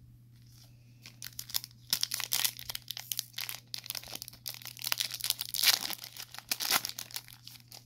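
Foil wrapper of a trading-card pack being torn open and crinkled by hand: a dense run of crackles that starts about a second in, is loudest near the end, and stops just before the end. A steady low hum runs underneath.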